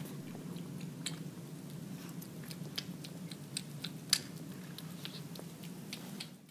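A cat chewing wet cat food: faint, irregular small clicks over a low steady hum.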